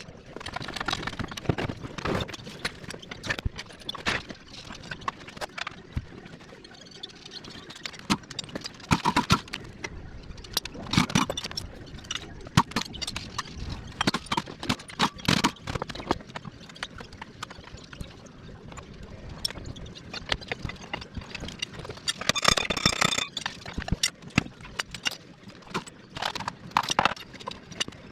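Irregular knocks, clanks and rattles of hand tools and metal engine parts being handled while a Honda K20 engine is taken apart, with a denser rattling stretch about 22 seconds in.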